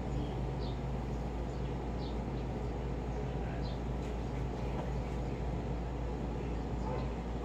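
Window-type air conditioner running with a steady low hum and rush. Faint short high chirps come every second or two over it.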